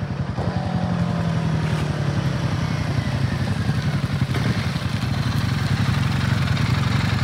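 Royal Enfield Himalayan 450's single-cylinder Sherpa 450 engine running at a steady note, its pitch easing down a little over the first few seconds and then holding.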